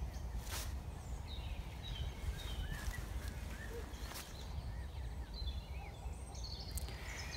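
Small birds chirping with short, scattered calls over a low, steady rumble of outdoor background noise, with a few faint clicks.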